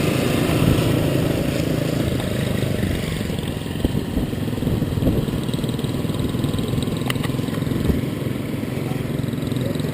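A motor vehicle's engine running steadily at low speed, with a couple of faint clicks about seven seconds in.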